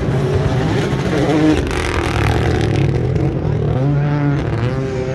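Rally car engine revving hard on a stage run, its pitch rising and falling with throttle and gear changes, with a rush of noise around the middle.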